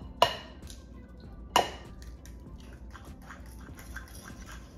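Two eggs cracked against the rim of a stainless-steel mixing bowl: two sharp, ringing knocks about a second and a half apart. After that, a fork stirs them into wet ricotta with quick soft scraping and small clicks against the bowl.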